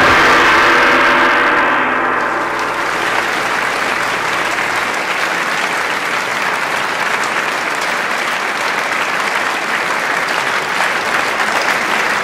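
A large audience applauding steadily. A music chord rings out and fades under it in the first few seconds.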